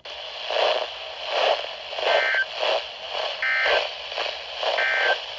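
Weather radio broadcast buried in hissing, crackling static that swells and fades. Three short two-tone digital data bursts of the Emergency Alert System SAME code, about 1.3 s apart, sized like the end-of-message signal that closes an alert.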